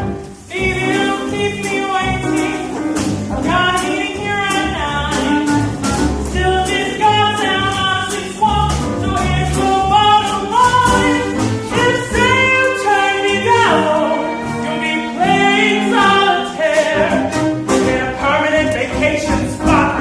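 A live musical theatre number: singing over a small pit band with drums keeping a steady beat.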